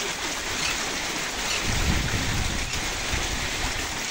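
Heavy rain falling steadily, with rainwater pouring off the roof and splashing into a plastic water tank. A brief low rumble rises about two seconds in.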